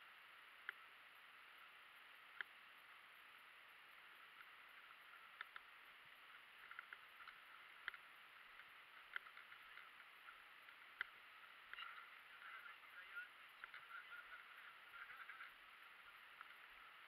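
Near silence: faint outdoor quiet with a few scattered small clicks and, about twelve seconds in, a short run of faint chirps.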